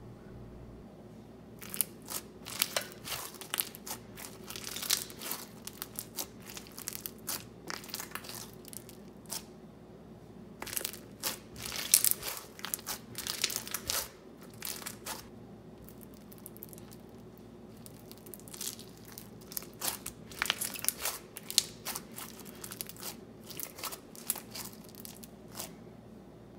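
Pink slushie bead slime being pressed, squished and stretched by hand: crunchy crackling and popping of the beads, in irregular clusters with a quieter spell about halfway through.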